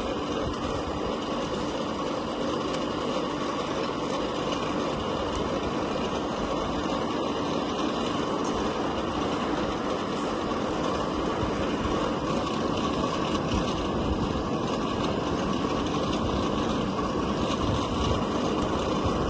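A machine running steadily with a continuous mechanical noise and no distinct hammer blows.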